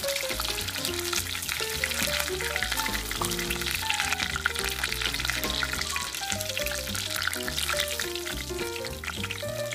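Breaded kushikatsu skewers deep-frying in a pot of hot oil, crackling steadily throughout. Background music with a melody of short notes and a bass line plays at the same time.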